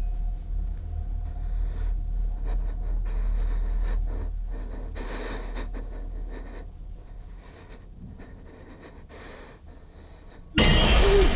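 Low, dark drone of suspense sound design with short breathy hisses, fading out; near the end a sudden loud, harsh burst of noise cuts in.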